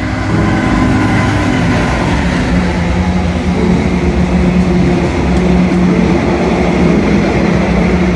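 A Class 59 diesel locomotive, with its EMD two-stroke V16 engine, passes close by, loudest in about the first second. Then a long rake of hopper wagons rolls past with a steady heavy rumble of wheels on rail.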